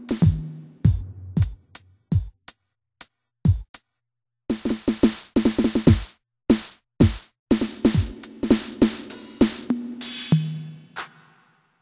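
Yamaha DD-65 digital drum kit played by tapping its pads: electronic drum sounds, many hits sliding down in pitch. A few scattered hits about two to four seconds in, then a fast run of hits. The run ends in a longer ringing hit near the end, then stops.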